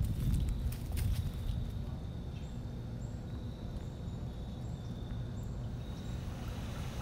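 Footsteps in dry fallen leaves for the first second and a half, then a steady low rumble with a faint, even high tone and a few short chirps above it.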